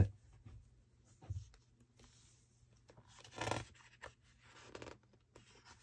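Hands brushing and rubbing over the glossy paper of a large hardback book's open pages: a few short, soft rustles, the loudest midway through.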